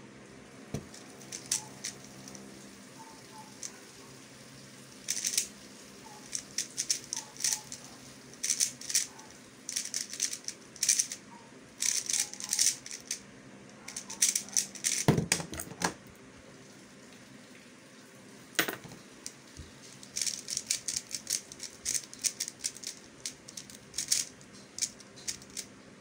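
X-Man Tornado V1 speed cube being turned fast: runs of rapid plastic clicking and rattling as the layers snap round, with short pauses between runs. One louder, deeper clack comes about fifteen seconds in.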